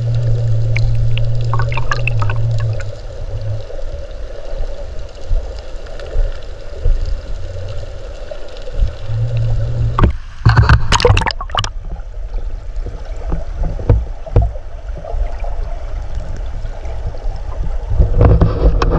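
River current heard through an underwater camera housing: a low, muffled rumble with crackling, and clusters of sharp knocks about ten seconds in and again near the end.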